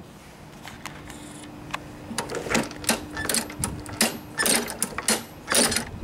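Quick, irregular clicking and rattling from the mower's handle controls and newly fitted cables being handled and worked, starting about two seconds in.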